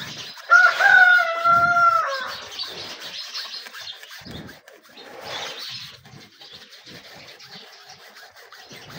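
A wire saw rasping in uneven strokes across the base of a water buffalo's horn. About half a second in, a loud, high, drawn-out animal call lasts about two seconds, slightly falling at its end, and it is the loudest sound here.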